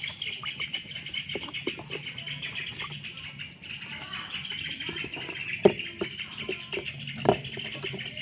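Otter chirping rapidly and without a break in a high pitch while it eats, with small chewing clicks. Two louder sharp cracks about a second and a half apart come in the second half.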